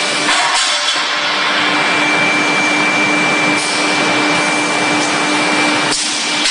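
Steady machinery noise of a hot forging line, an even rushing noise with a faint high whine and a low hum running through it.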